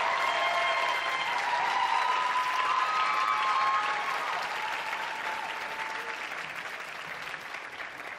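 Concert audience applauding with cheers and whoops, the applause gradually dying away toward the end.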